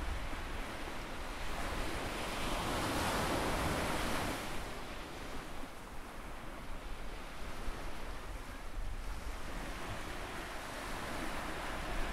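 Ocean surf on a sandy beach: small waves breaking and washing ashore. The surf swells a couple of seconds in, eases off, then builds again near the end, over a low rumble of wind on the microphone.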